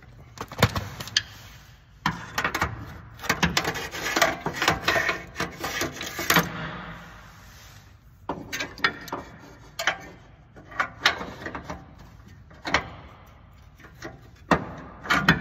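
Irregular metal clicks, knocks and rattles of tools working the bolts at a Miata's exhaust header-to-downpipe joint, densest in the first half and more scattered after.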